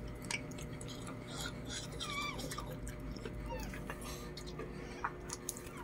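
Newborn Lhasa Apso puppy squeaking, several short high cries that fall in pitch, with soft clicks and rustling between them.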